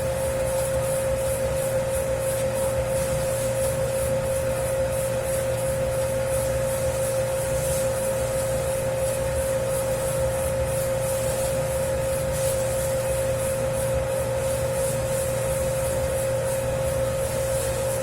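Dough-kneading machine running steadily as it kneads a 10-kilo batch of pizza dough: an even motor hum with a strong steady tone, the dough turning and rubbing with a faint regular swish about twice a second.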